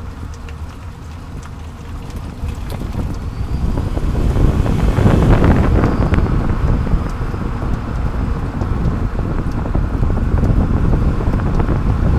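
Road and tyre noise with wind buffeting the microphone, picked up under a moving 30-series Toyota Prius near the left rear wheel; it grows louder about four seconds in.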